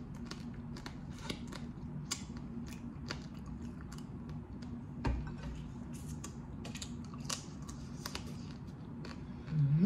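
Close-up eating sounds of boiled blue crab: irregular small clicks and wet smacks from chewing and picking the meat off the shell, over a faint steady low hum. A soft low thump about five seconds in.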